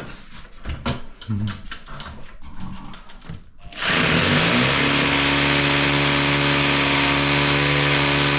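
Power drill with a masonry bit boring into a concrete ceiling. It starts about four seconds in and runs loud at a steady pitch, with a few light knocks before it.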